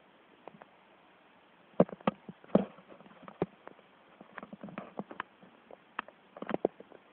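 A sleeping dog making a run of short, irregular clicking and tapping noises, starting about two seconds in.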